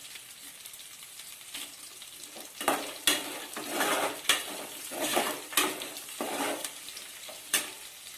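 Oil sizzling steadily as dried red chillies, cashews, dal and onion fry in an aluminium pan. From about two and a half seconds in, a steel ladle stirs and scrapes through them, knocking sharply against the pan several times.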